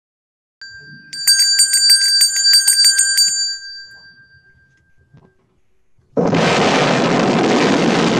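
A bell rings rapidly, about six strikes a second, for roughly two seconds and then dies away. About six seconds in, the loud noise of a Saturn V rocket's engines at liftoff starts suddenly.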